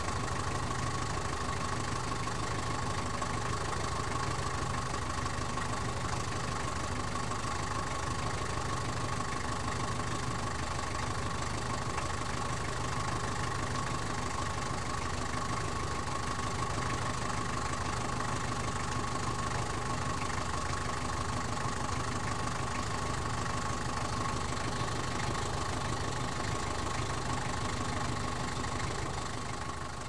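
Taxi engine idling steadily, heard from outside the car. It begins to fade out near the end.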